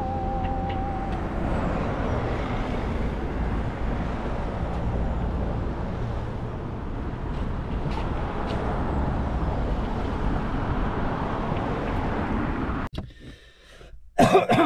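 Steady road traffic noise from cars on a town bridge, with wind rumbling on the microphone. About 13 seconds in it cuts to quiet inside a parked car, followed by one short loud breath from a man.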